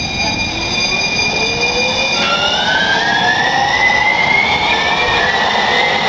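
Siemens S70 light rail train accelerating away from a station, its traction inverters whining in several tones that climb steadily in pitch over the rolling noise. The tones jump to a new set a little over two seconds in, then climb again.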